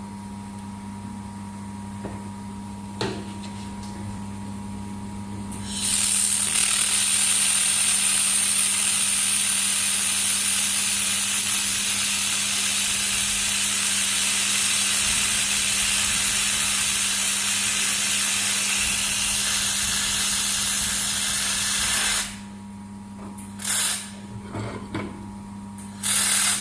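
TPW-2000W laser welding machine test-welding 5 mm aluminium at 1300 W: a loud steady hiss starts about six seconds in and runs about sixteen seconds, then two short bursts follow near the end. A constant low machine hum lies underneath.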